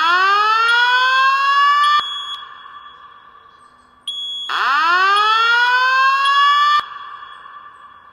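Fire alarm voice-evacuation system sounding its whoop tone: two rising sweeps, each about two seconds long and cutting off sharply, roughly four and a half seconds apart. A fainter steady tone and short high beeps from other sounders run underneath.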